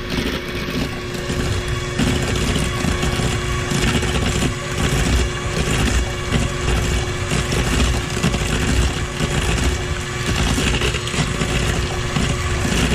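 KitchenAid electric mixer running steadily with its twin beaters creaming softened butter and sugar in a stainless steel bowl; an even motor hum with one constant tone through it.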